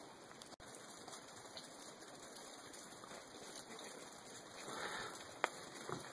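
Steady light rain pattering, with scattered individual drops ticking. A single sharp click comes near the end.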